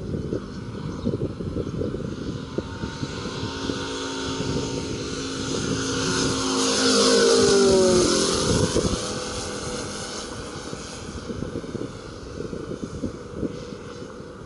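Radio-controlled La-7 warbird model's Moki S180 five-cylinder radial engine on a fly-by pass: it grows louder, is loudest about halfway through, then drops in pitch and fades as the plane goes by. Wind buffets the microphone throughout.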